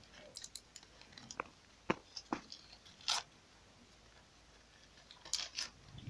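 Faint crinkling and light taps of paper sticker packets and stickers being handled, scattered through the first few seconds, then a short quiet stretch and another rustle near the end.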